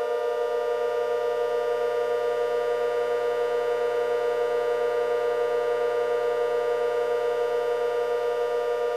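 Outdoor warning siren sounding a sustained steady tone, several pitches held at once with no rise or fall, with a slight fluttering beat in the sound.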